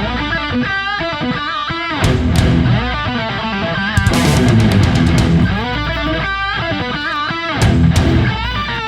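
Heavy rock music: an electric guitar plays a lead melody with bent, wavering notes over bass and drums.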